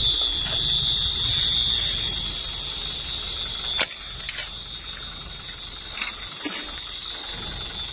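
An alarm sounding one steady, unbroken high-pitched tone over a low rumble of background noise, with a few scattered clicks. The background noise drops suddenly about four seconds in while the alarm tone carries on.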